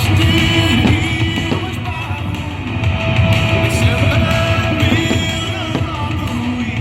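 Loud rock music with a singing voice, guitar and drums.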